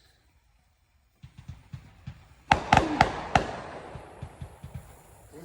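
Fireworks going off: a run of small crackling pops starting about a second in, then four loud sharp bangs in quick succession, followed by more crackling.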